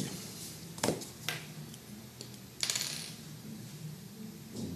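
A few sharp clicks and taps as a clear plastic ruler and a marker are handled and set down on paper, with a short scrape about two and a half seconds in as the ruler is slid into place.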